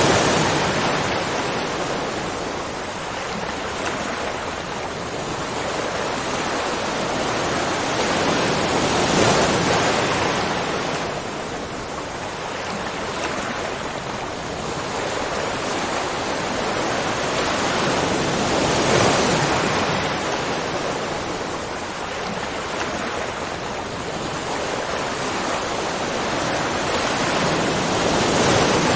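Rushing water: a continuous dense hiss that swells and eases about every nine to ten seconds.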